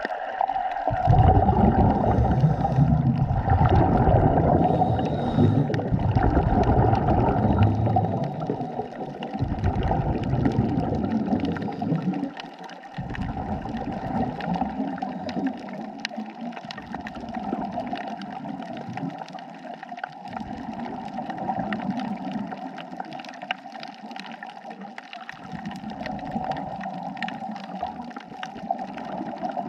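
Underwater gurgling and bubbling, typical of a scuba diver's exhaled bubbles, over a steady hum. It is heavy for the first dozen seconds, then comes in softer bursts every few seconds.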